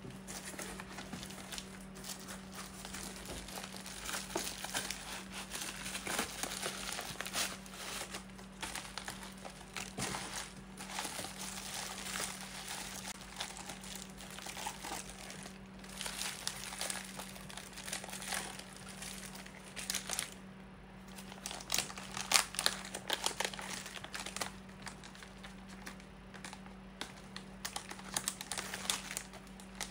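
Bubble wrap and plastic packaging crinkling and rustling as hands unwrap a package, in irregular handfuls, with louder crackles in the second half. A steady low hum runs underneath.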